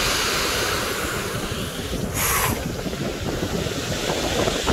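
Strong wind buffeting the microphone over the noise of surf on a pebble shore, a steady rumbling hiss with a brief sharper hiss about two seconds in.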